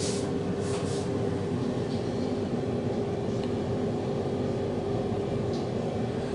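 Steady machinery hum with a constant low tone, with a few faint clicks in the first second.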